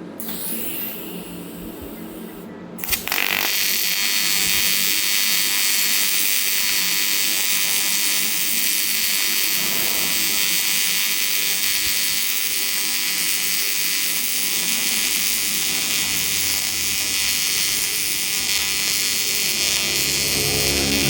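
AC TIG welding arc on aluminium: a steady electric buzz with hiss that strikes up suddenly about three seconds in and holds on.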